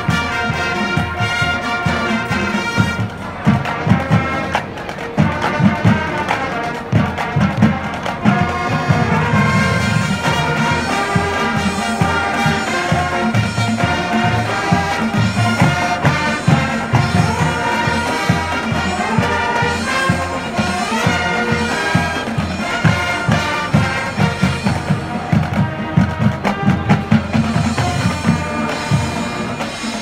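Marching band playing: brass carrying the melody over a steady beat of drums and front-ensemble percussion.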